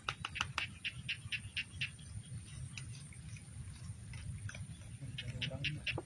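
A small animal's rapid clicking call: a run of short, high clicks at about five a second, then a second run near the end. A steady low rumble sits underneath.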